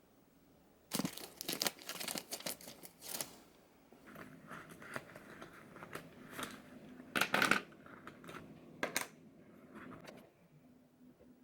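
Crinkling and tearing of packaging being handled, in short bursts: a quick run of them about a second in, and the loudest a little past the middle.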